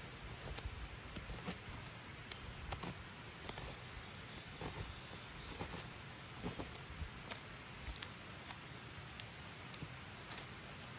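Knife blade scraping and gouging into dry, rotten wood, a series of faint, irregular short scrapes and crackles as the crumbly wood breaks away into shavings.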